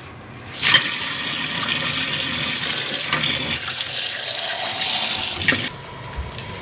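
Kitchen tap running: water gushes out steadily for about five seconds, switched on suddenly and shut off just as suddenly.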